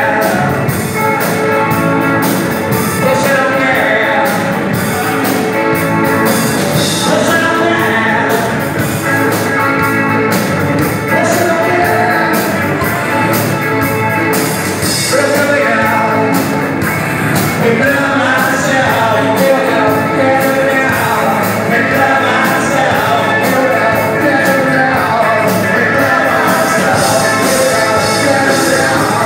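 A live rock band playing a song: a male singer over electric guitars, bass guitar and a drum kit, loud and steady throughout.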